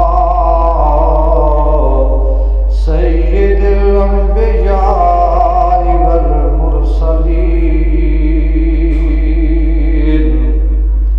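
A man's voice chanting a melodic religious recitation in long, drawn-out wavering phrases, over a steady low electrical hum.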